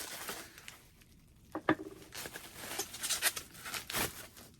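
Packaging rustling and crinkling as hands search through a mail package, with a few light clacks of hard items being handled, the sharpest about a second and a half in and another near the end.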